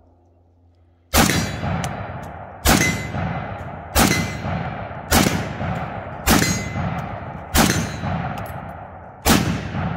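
Seven semi-automatic rifle shots from a Romanian PSL in 7.62x54R, fired at an uneven pace of about one every second and a half. Each report rolls away for about a second. About half a second after most shots comes a faint clang from the steel plate being hit.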